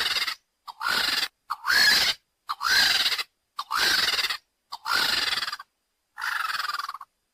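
Rüppell's vulture giving a series of harsh, hissing squeals, about one a second, each opening with a short rising note.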